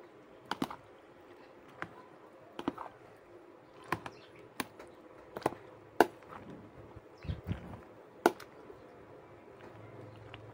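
A metal spoon stirring macaroni salad in a plastic tub, clicking and knocking against the tub's sides at irregular intervals, about a dozen sharp clicks.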